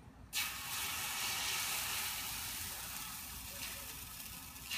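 Cooking spray and pancake batter sizzling on a hot griddle. The steady hiss starts suddenly just after the beginning and eases slightly near the end.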